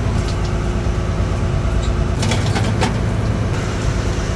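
Fishing boat's engine running steadily, a continuous low drone, with a few sharp light clatters about two to three seconds in.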